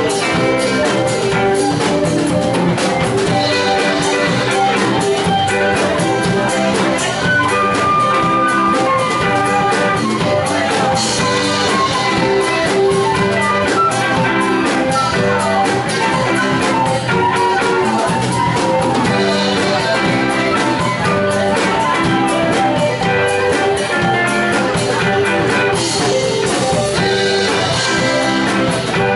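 Live band playing electric guitar, bass guitar and drum kit, loud and continuous.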